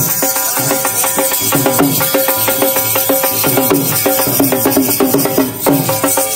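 Live dhol drumming in a fast dance rhythm with a sustained, wavering melody over it.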